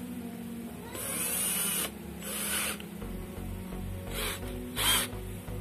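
Lotus cordless drill motor run in four short bursts, the longest about a second, while the chuck is held by hand so the motor opens and closes it. The chuck had been too stiff to loosen or tighten and is being worked free after a WD-40 soak.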